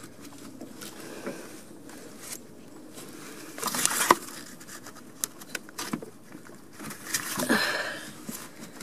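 A gloved hand working rubber vacuum hoses onto the ports of a new EVAP purge solenoid in the engine bay: rubbing and scraping, with a few sharp clicks and two louder stretches of handling, about four and seven seconds in.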